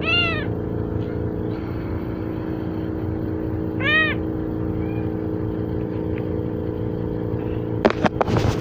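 A kitten meowing twice, about four seconds apart: two short, high mews that rise and fall in pitch, over a steady low hum. A burst of knocks and rustling comes near the end.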